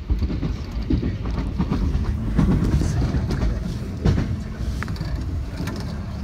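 Running noise of a 323 series electric train heard from inside its rear cab: a steady low rumble with wheels clicking over rail joints and points, one sharper click about four seconds in.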